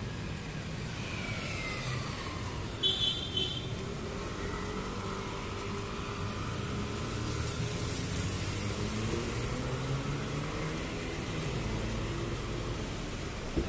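Road traffic passing, with engines rising and falling in pitch, and a vehicle horn giving three short toots about three seconds in.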